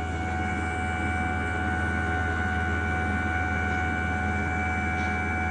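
Koehler automated air release value apparatus running mid-test: a steady hum with several constant tones.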